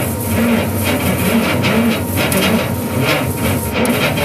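Laser engraver running as it burns a pattern into a slice of ham, a steady machine noise with some wavering low tones, and guitar music mixed in.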